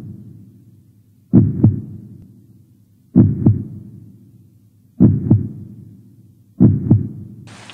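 Heartbeat sound effect: slow, deep double thumps (lub-dub), four beats about one every two seconds.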